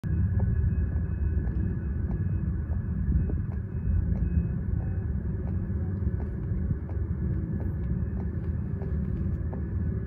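Oil-heating flue pipe clicking about twice a second: its metal top section sticks metal-on-metal in the black chimney shaft cover and jerks free as the plastic flue pipe in the chimney expands while the burner fires, a fault the owner traces to a fitting error that presses the pipe to one side. Under the clicks, a steady low rumble.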